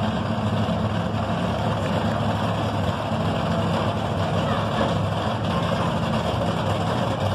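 Wheel loader's diesel engine running steadily as it pushes a monster truck.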